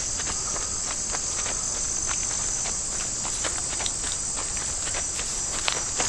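A steady, high-pitched insect chorus, with footsteps on a leaf-strewn dirt trail.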